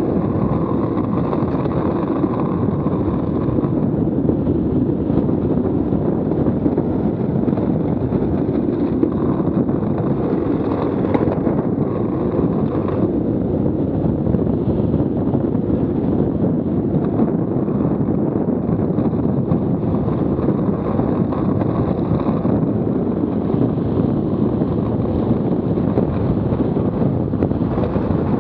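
Steady loud rush of wind buffeting the microphone, mixed with the rumble of the Buggy Rollin wheel suit's wheels rolling fast on asphalt.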